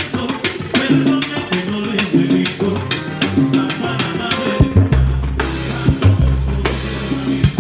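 Salsa band playing live at a sound check: drum kit and percussion keeping a dense, even beat over a repeating short-note figure, with deep sustained bass notes coming in about five seconds in.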